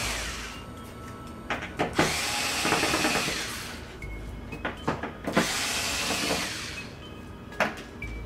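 Cordless electric screwdriver running in three short runs of a second or two, backing screws out of a TV's back cover, with clicks and taps between runs.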